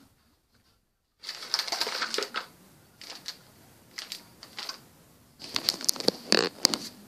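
Cardboard pieces and paper of a Djeco Tactilo Loto game being handled in its cardboard box. There is a stretch of rustling about a second in, then scattered light clacks and taps, and a busier run of clicks and rustling near the end.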